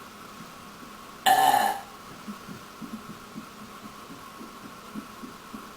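A woman's single short, loud belch about a second in, followed by a few faint, short low blips.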